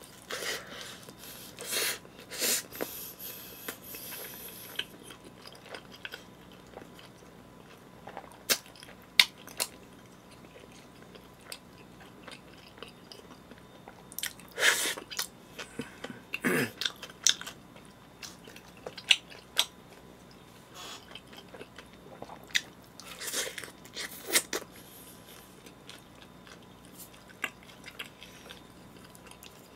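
A person biting and chewing pizza close to the microphone: irregular crunchy bites and wet chewing, with scattered sharp clicks and pauses between mouthfuls.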